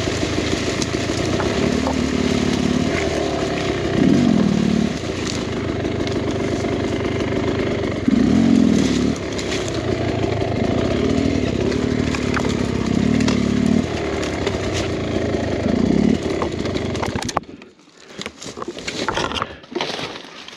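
Beta X-Trainer 300 two-stroke dirt bike engine running at low speed, with repeated surges of throttle every second or two. It cuts off suddenly near the end, leaving faint crackling.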